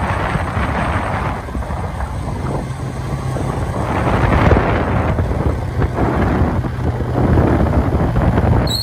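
Wind buffeting the microphone over the steady low drone of a moving vehicle's engine, heard from on board as it drives along.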